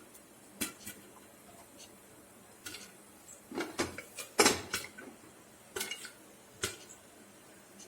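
Popcorn kernels popping in butter inside a covered cooker, the popped corn hitting the lid. The pops come as about a dozen sharp, irregularly spaced clicks, sometimes two or three close together. The sparse popping marks the first stage, with the kernels just starting to burst.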